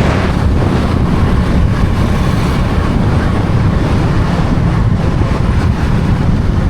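Wind buffeting the microphone while riding on a motorcycle, a loud steady rumble with road and vehicle noise underneath.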